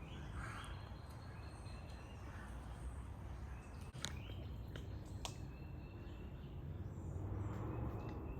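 Birds chirping faintly in short calls over a steady low outdoor rumble, with a few sharp clicks.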